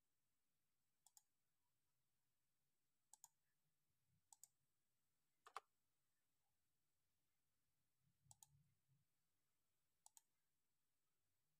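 Computer mouse button clicking, six times, each a quick press-and-release double click, spaced a second or two apart.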